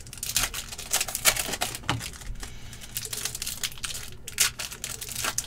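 Foil hockey card packs crinkling and tearing as they are opened by hand: a rapid, irregular run of sharp crackles and clicks.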